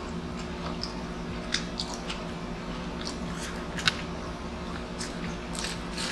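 Close-up mouth sounds of a person eating seafood: chewing and biting with scattered sharp clicks and crunches. A steady low hum runs underneath.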